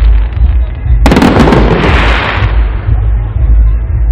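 Fireworks salute: one sharp bang about a second in, followed by a spreading hiss that fades over a second or so, over a constant low rumble.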